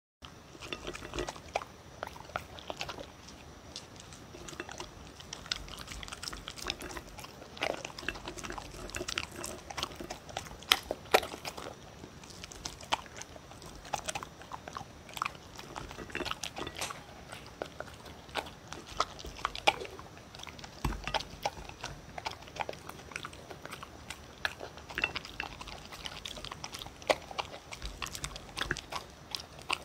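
A dog crunching and chewing beef dry kibble mixed with pieces of sweet potato and bell pepper, close to the microphone: a steady run of irregular crunches and clicks.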